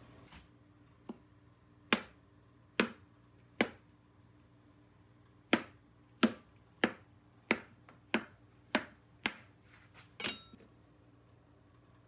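A chef's knife cutting a rope of potato gnocchi dough into pieces, each cut ending in a sharp knock of the blade on the cutting board. About a dozen knocks, spaced out at first, then coming faster, about two a second, in the second half.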